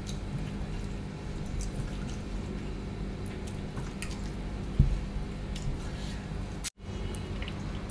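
Fingers mixing and scooping curry-soaked rice on a steel plate: soft wet squishing with occasional light clicks against the metal, over a steady low background. The sound cuts out for an instant near the end.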